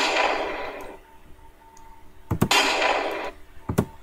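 Desert Eagle pistol gunshot sound effect played back: a shot whose echoing tail fades over the first second, then a second shot about two and a half seconds in that fades the same way. A single sharp click comes near the end.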